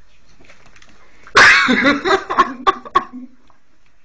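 A person bursting out laughing: one loud outburst followed by several short sharp bursts of laughter over about a second and a half.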